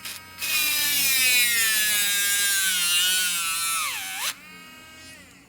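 Dremel Stylo+ rotary tool with a tile-cutting bit grinding into a thick, ridged seashell: a loud, high whine with a gritty grinding hiss. Its pitch sags as the bit bogs under load and dips sharply near the end. It cuts off suddenly as the bit comes off the shell, leaving the motor running faintly.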